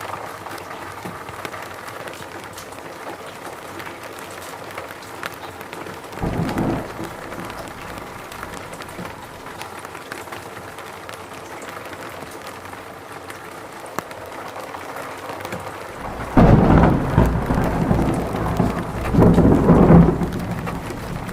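Steady rain falling in a forest, with thunder: a short low rumble about six seconds in and a longer, louder rolling rumble that swells twice near the end.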